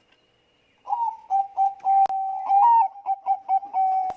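Zebra dove of the Bangkok song strain (perkutut bangkok) singing its cooing song: starting about a second in, a rapid run of short coos on nearly one pitch with a few higher inflected notes. A single sharp click sounds about two seconds in.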